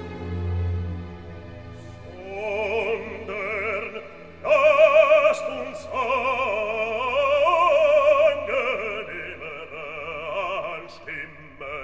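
Operatic singing over classical instrumental accompaniment: sustained instrumental notes open, then a singer with strong vibrato enters about two seconds in and grows louder about halfway through.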